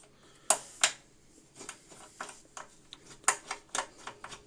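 Irregular small clicks and taps of a screwdriver and screws against a desktop PC's metal case as the screws are undone, with two sharper clicks near the start.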